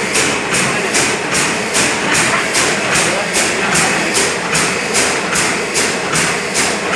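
Liquid filling machine running, a steady mechanical clatter with a regular stroke repeating about two and a half times a second.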